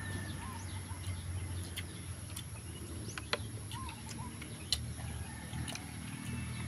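Sharp mouth clicks and smacks of people eating with their hands, over faint short bird chirps and a steady high insect drone.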